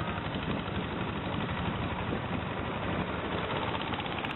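Long-tail boat engine running steadily under way, a rapid, even chugging with no change in speed.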